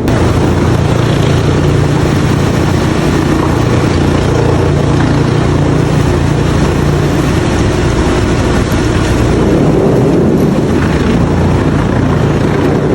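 Heavy industrial wood-processing machinery running loudly and steadily: a low, even hum under a dense, unbroken clatter.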